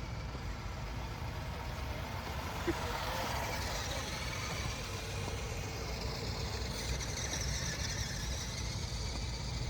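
Radio-controlled military truck's electric motor and gears whining as it drives, the pitch climbing about three seconds in and staying high later on, over a steady low rumble.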